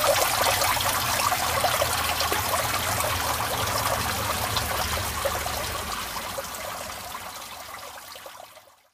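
Stormwater trickling and dripping down into a street storm drain under a cast-iron grate, a dense patter of small drops on the water in the well. It fades away over the last few seconds.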